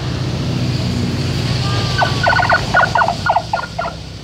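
A vehicle engine runs steadily, with a rapid run of about eight short, high-pitched pulses starting about two seconds in and lasting about a second and a half.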